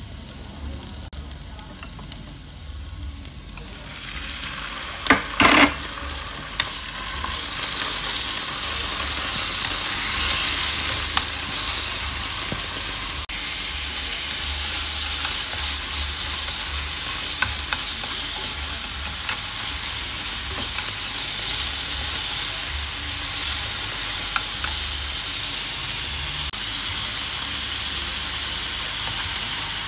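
Shallots and garlic sizzling gently in oil in a frying pan; about five seconds in come two sharp knocks, and the sizzle turns loud and steady as sliced meat fries and is stirred with wooden chopsticks, with small clicks now and then.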